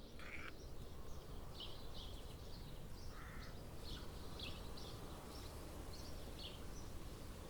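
Faint birds chirping: many short, high calls at irregular intervals over a low, steady background noise.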